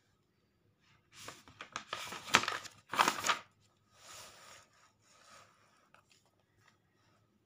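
Paper rustling as notebook pages are turned over: a run of crinkly swishes from about a second in, the loudest just before three seconds, then a fainter rustle.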